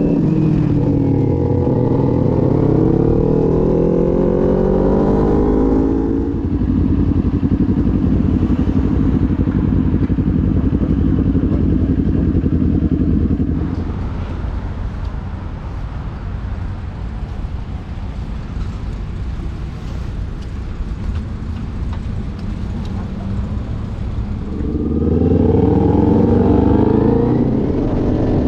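Small Kawasaki Ninja sport bike's parallel-twin engine under way: it revs up through the first few seconds, runs steady, then settles into a quieter, lower drone from about halfway, and revs up again near the end.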